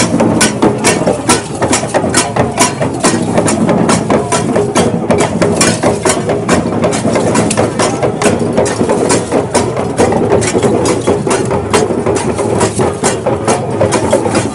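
Traditional percussion accompanying a Warba dance: sharp, rattling strokes at about three to four a second in a steady driving rhythm over a dense, full background.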